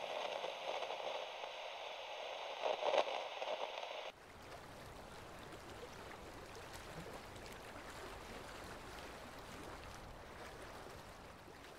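Static-like hiss from a digital glitch transition effect, cutting off abruptly about four seconds in, followed by a fainter steady rushing noise.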